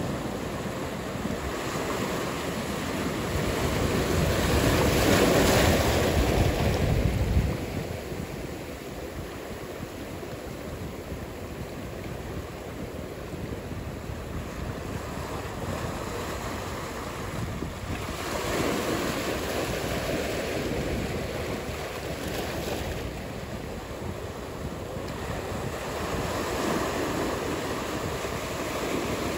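Ocean surf: waves breaking and washing in a steady noise. It swells loudest over the first seven seconds, drops off suddenly, then rises again in smaller surges later.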